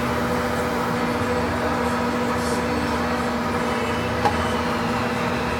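Colchester 15-inch lathe running steadily, a constant machine hum with a steady tone in it. One sharp tick comes a little over four seconds in.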